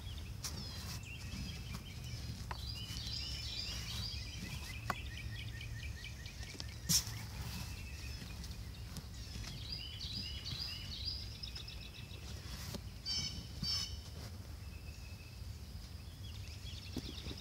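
Birds chirping in quick repeated runs over a steady low rumble of outdoor background noise, with occasional scrapes and sharp clicks as a gloved hand digs through loose potting soil in a plastic container. The loudest click comes about seven seconds in.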